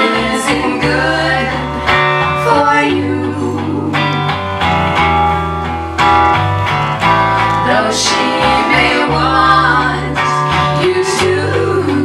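Live band music: three women singing together over guitar accompaniment.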